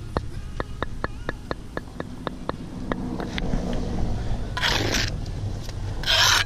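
A fast run of light, evenly spaced ticks, about three or four a second, that fades out around three seconds in, over a steady low hum. Near the end come two short scrapes about a second and a half apart.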